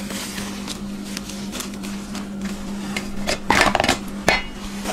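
Brief handling knocks and rustles about three and a half seconds in, with one more just after, over a steady low hum.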